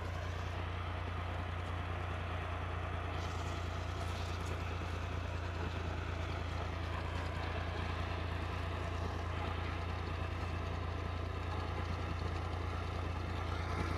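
Tractor's diesel engine idling steadily with an even low hum.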